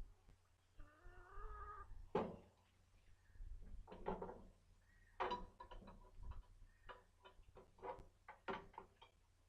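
A short wavering animal call about a second in, then a scatter of sharp knocks and clicks, some with a brief pitched edge.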